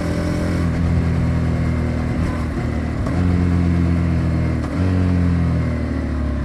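Exhaust of a Honda CBR250R's single-cylinder engine running at a steady pitch, stepping louder about three seconds in, with a brief dip near five seconds.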